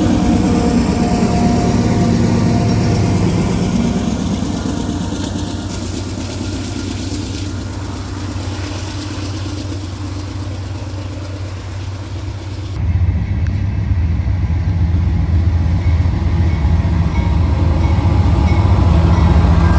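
Diesel freight train locomotives running, a steady low engine rumble with rail noise. About 13 s in the sound changes abruptly to a heavier, more muffled engine drone that grows louder toward the end.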